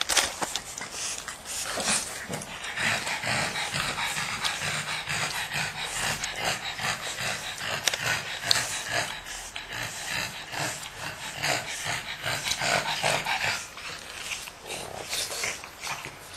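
Two pug puppies play-fighting, making irregular dog vocal noises mixed with rustling as they wrestle.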